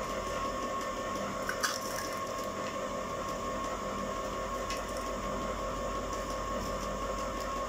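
Electric ice cream maker running steadily as it churns, a constant motor hum with a thin steady whine. A couple of light clicks sound over it.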